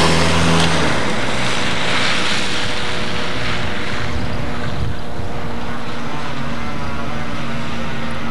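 A motor vehicle's engine running, with a rushing noise that swells about two seconds in and then fades.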